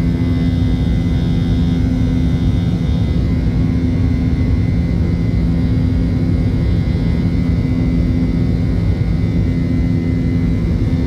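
Jet airliner cabin noise by the wing: the turbofan engine's steady roar, with a low steady hum and a faint high whine.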